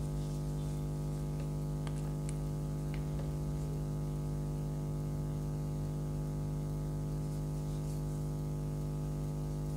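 Steady electrical mains hum, a buzz with many even overtones, with a few faint ticks about two to three seconds in.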